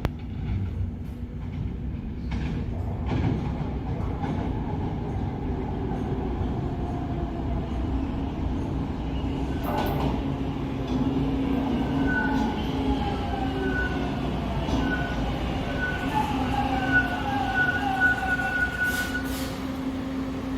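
TTC subway train running in a station: a steady rumble and hum, a sharp click about ten seconds in, then a whine of several tones that slowly falls in pitch through the second half.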